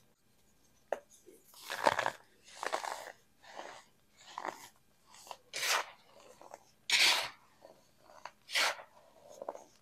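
Blocks of baking soda crunching and crumbling as they are crushed in the hands: a run of crisp, separate crunches about once a second, the loudest about seven seconds in.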